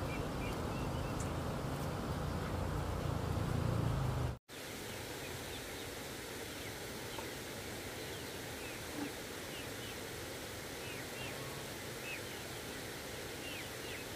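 Young chickens peeping in short, scattered chirps over a steady outdoor hiss. For the first few seconds a louder low rumbling noise covers everything, and it stops suddenly at a cut.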